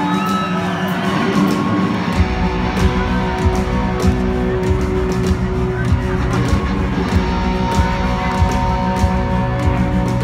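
Live rock band playing a slow ballad: grand piano and electric guitar over sustained chords, with the drums and bass coming in about two seconds in on a steady slow beat.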